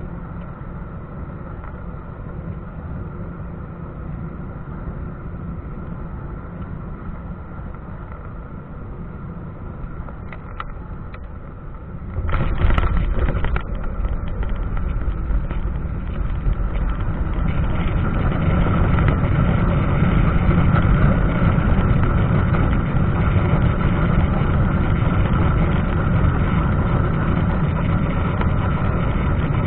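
Airliner cabin noise on final approach: a steady hum of engines and airflow. About twelve seconds in, the main wheels touch down with a jolt and rattle and the noise jumps. From about eighteen seconds a louder, steady engine rumble follows as the jet slows on the runway with spoilers up, typical of reverse thrust.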